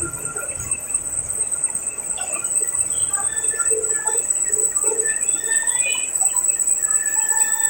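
Steady high-pitched insect drone, with scattered short chirps and squeaks over it.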